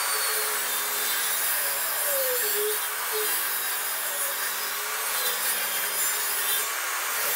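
Table saw ripping a wooden window-sill board as it is fed slowly along the fence: a steady cutting noise with the motor's tone dipping slightly under load about two seconds in.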